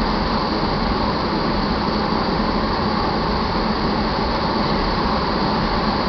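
Loaded tank cars of a crude oil train rolling past, a loud, steady noise of steel wheels on rail.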